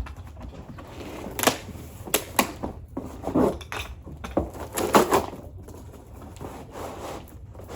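Dolly parts and caster wheels being handled and fitted together: a handful of separate knocks and clicks, with rustling handling noise in between.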